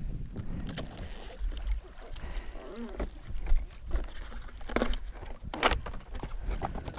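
Sea water sloshing against a small outrigger boat's hull, with a steady low rumble of wind on the microphone. A couple of brief sharp noises about five seconds in.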